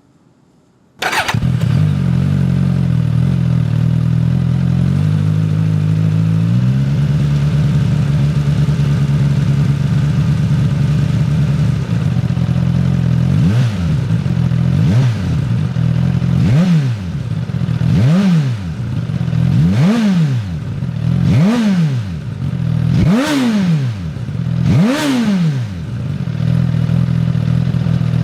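Suzuki Katana's inline-four engine starting up through its exhaust, idling steadily, then blipped about eight times in a row with each rev going a little higher, before settling back to idle.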